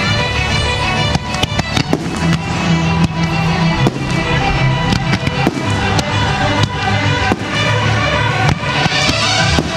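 Aerial fireworks going off in a rapid string of sharp bangs and crackles, over music that plays throughout with a steady bass line.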